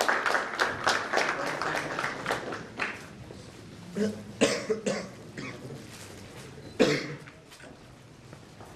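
Audience applause, dense clapping that thins out and dies away over the first three seconds, followed by a few short, sharp noises.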